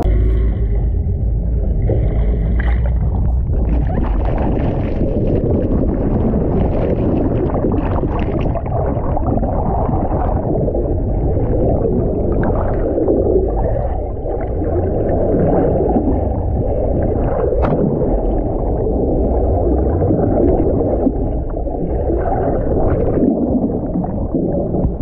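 Steady, muffled low rumble of a fishing boat's engines and water washing against the hull, with a few faint knocks, one sharper one about two-thirds of the way through.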